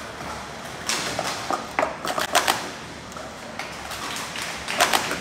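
Plastic sport stacking cups clacking quickly as a 3-3-3 stack is built up and taken back down in under two seconds, ending with the hands slapping the timer mat. A short burst of sharp clacks comes near the end.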